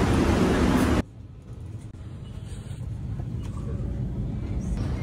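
A loud, even rushing noise in an airport jet bridge that stops abruptly about a second in. It gives way to the low, steady rumble of an airliner cabin with the aircraft on the ground, building slightly.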